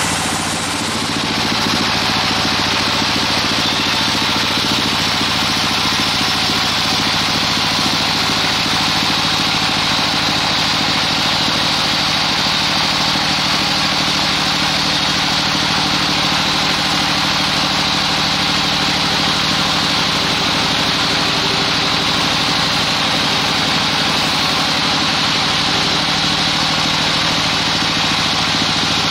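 Band sawmill running, its blade cutting lengthwise through a large damar (Agathis) log: a steady, loud cutting noise over the machine's low hum.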